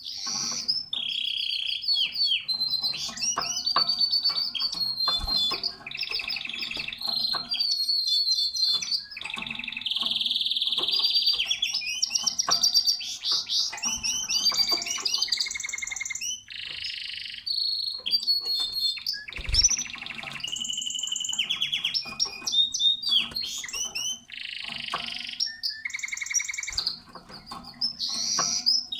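Domestic canary singing a long, unbroken song of rapid trills and rolling phrases, the phrase changing every second or two.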